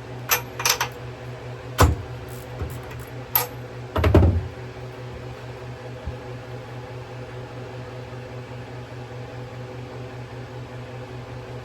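A few sharp metallic clicks and a heavier knock about four seconds in, as tools are handled to take the spark plug out of a small engine, over a steady electrical hum. After that only the hum goes on.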